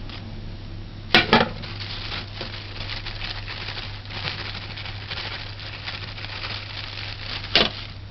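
Flour being scooped and measured for a cake batter: soft rustling and scraping of dry flour, with a sharp double clatter of kitchenware about a second in and another near the end, over a steady low hum.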